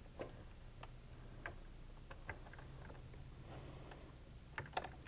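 A handful of faint, irregular small clicks as a sewing machine's presser foot is taken off and a decorative foot is snapped on, over a low steady hum.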